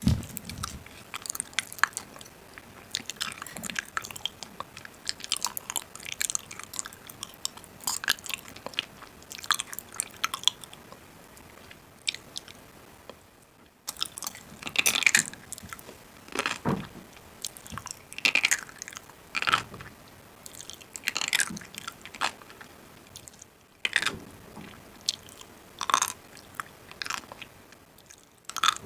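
A person biting and chewing crunchy food, with many short crisp crunches.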